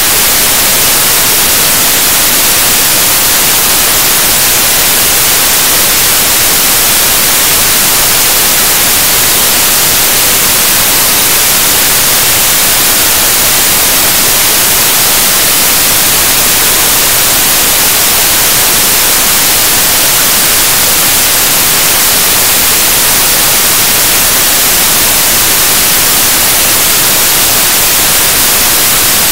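Loud, steady static hiss, strongest in the high end, unchanging throughout, with no speech or other sound heard through it.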